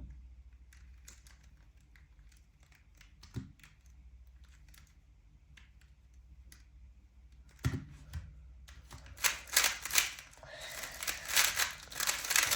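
A 3x3 Rubik's Cube being turned at speed in a speedsolve: a fast, dense clatter of plastic layer turns lasting about four seconds near the end, after scattered faint clicks and a couple of single thumps.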